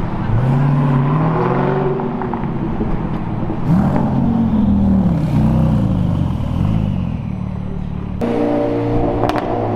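Sports cars' engines revving as they pull away along the street, the pitch climbing and dropping through gear changes twice. About eight seconds in the sound switches abruptly to a steadier, lower engine note from a car rolling slowly up.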